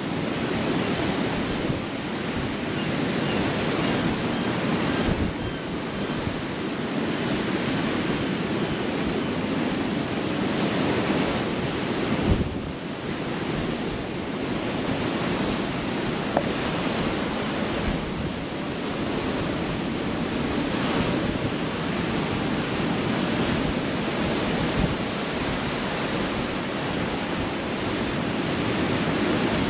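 Ocean surf in a steady roar of waves, with wind buffeting the microphone.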